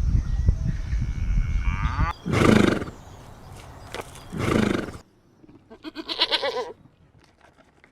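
Animal calls: a low rumble, then two short pitched calls about two seconds apart, then a quavering higher call near the end.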